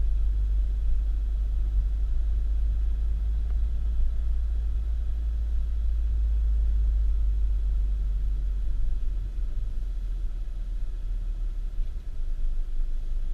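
Low, steady rumble of a car on the move, easing off about nine seconds in.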